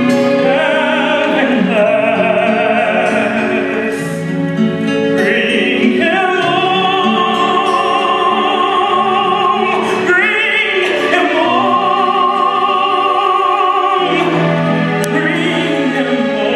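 A man singing solo in long held notes with vibrato over instrumental accompaniment, with brief breaks between phrases.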